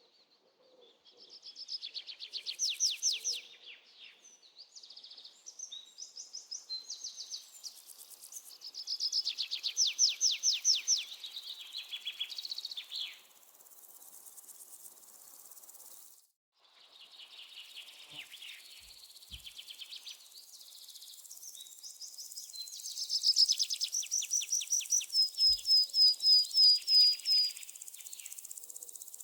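Several birds singing in fast trills of rapid repeated notes and chirps, with a steady high insect buzz, crickets or cicadas, that grows louder in the second half.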